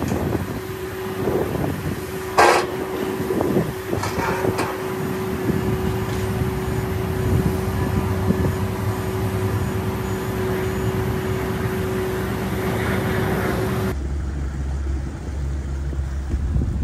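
Cargo-handling machinery on an airport ramp running with a steady hum, with a sharp knock about two and a half seconds in and a few lighter knocks after. Near the end it cuts off abruptly and gives way to a boat engine's low rumble.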